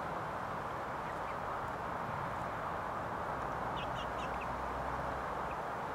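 Young chickens, about seven weeks old, giving a few short, high peeps in quick succession about four seconds in, over a steady hiss.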